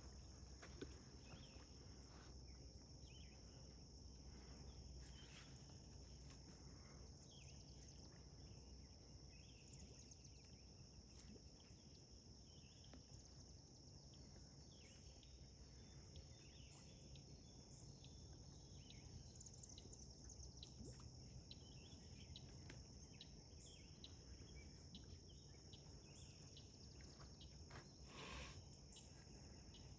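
Faint, steady high-pitched chorus of insects, with a few scattered faint ticks.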